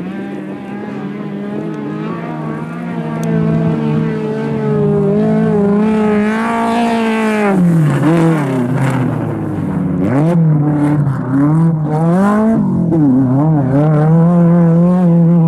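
Volkswagen Gol rally car's engine at full throttle, the pitch climbing, then falling sharply about halfway through as the driver lifts off for a turn. It dips again, wavers through the next corners and holds high revs near the end.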